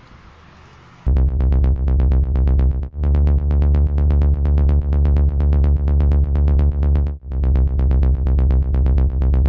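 Electronic instrumental beat: a steady deep bass under fast, evenly spaced ticks. It starts about a second in, drops out briefly twice, and cuts off just before the end.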